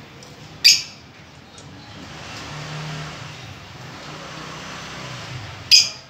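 Lovebirds giving two sharp, shrill chirps about five seconds apart, one near the start and one near the end, over a steady low rumble of background traffic.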